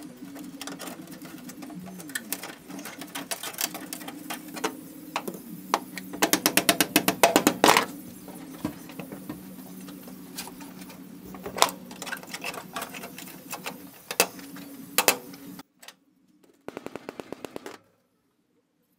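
Metal tapping and knocking on a rusted car floor pan, hand tools working at the rusty seam, over a steady low hum. A quick run of rapid taps comes about six seconds in, and a short burst of fast regular clicks near the end before the sound cuts off.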